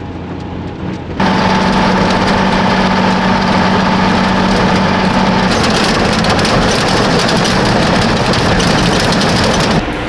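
Unimog expedition truck driving on a rough, bumpy dirt road: engine drone and road noise with constant clattering rattles. It comes in abruptly about a second in, with a steady hum that fades out about halfway, and cuts off just before the end.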